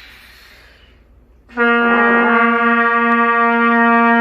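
A breath drawn in, then about a second and a half in a trumpet sounds a low C and holds it as one long, steady note.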